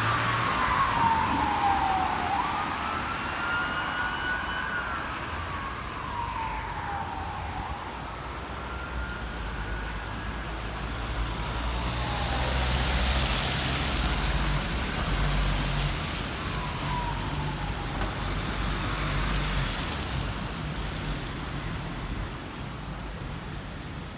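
Emergency vehicle siren wailing in slow rising and falling sweeps that fade away near the end, over a steady rumble of city traffic.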